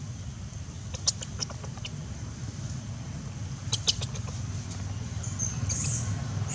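Steady low wind rumble on the microphone, with a few short, sharp high clicks about one second and again about four seconds in, and a brief high hiss near the end.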